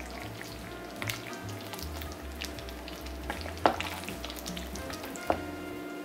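Wooden spoon stirring meatballs in thick tomato sauce in a slow cooker's crock: wet stirring with a few sharp knocks of the spoon against the crock, the loudest a little past the middle.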